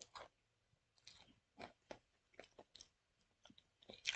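Faint chewing of a sandwich of white bread and Cheez-It crackers: irregular small crunches and mouth clicks, a few a second, with a louder bite about four seconds in.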